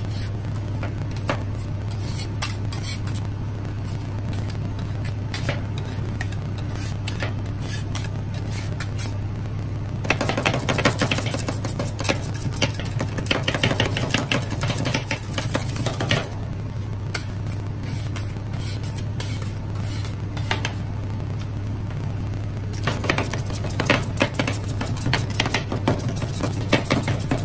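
Metal spatulas chopping and scraping on the steel cold plate of a rolled-ice-cream machine, working tortilla pieces into the freezing ice cream mixture, over a steady low hum from the machine. Fast runs of chopping strikes come from about ten seconds in for several seconds, and again near the end.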